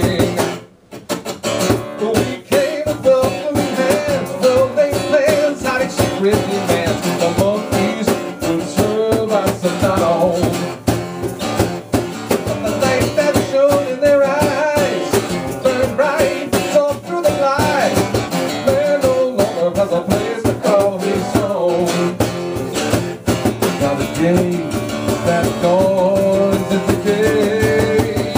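Live rock band playing an instrumental break: a guitar line with wavering, bending notes over a steady drum beat.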